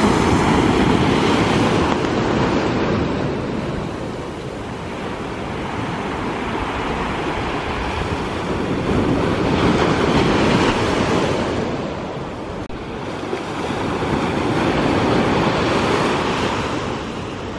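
Small sea waves breaking and washing up a sandy beach. The surf swells and eases, growing louder three times as waves break.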